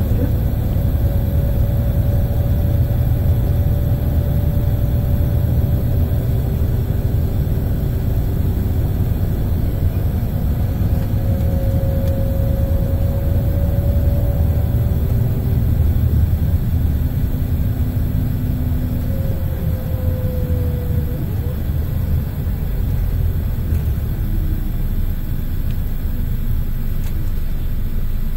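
Scania L94IB bus's DC9 five-cylinder diesel and ZF Ecomat 5HP600 automatic gearbox heard from inside the cabin while driving: a heavy, steady rumble with a faint whine that rises and falls in pitch.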